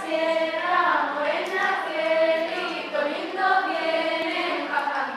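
A group of voices singing a melody together, like a choir.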